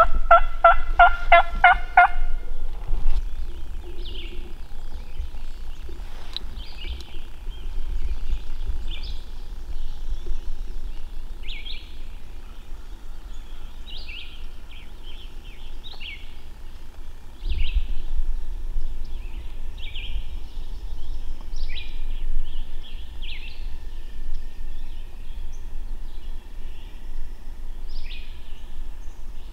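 Turkey calling: a quick run of about eight evenly spaced notes in the first two seconds. After it, small songbirds chirp in short high calls.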